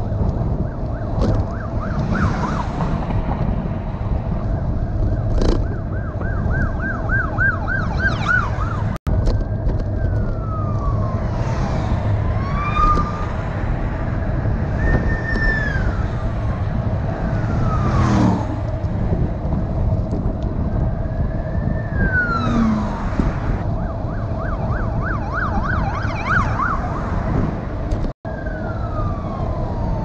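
Police sirens on sheriff's patrol vehicles, switching between a slow rising-and-falling wail and a fast warbling yelp, heard over steady wind and road noise.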